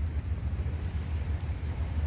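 Wood campfire crackling with a few small pops, over a steady low rumble of waves on the shore.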